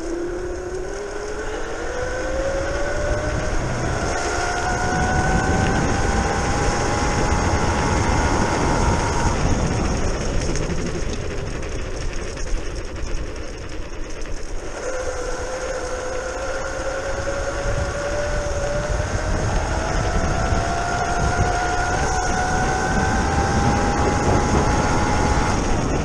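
Modified Razor E300 electric scooter's brushless outrunner motor, run by a VESC controller, whining as the scooter gathers speed, its pitch rising steadily. The whine cuts out about ten seconds in, returns about five seconds later at a lower pitch and climbs again. Wind and tyre noise run underneath.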